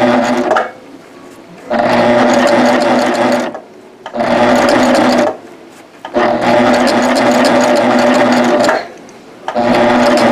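Serger (overlock machine) stitching at a steady speed in five short spurts, stopping four times for under a second each. The stop-start running is the slow pace needed to sew through the middle of each serger-crochet loop.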